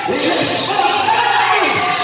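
Music, with crowd noise and shouts from the court beneath it.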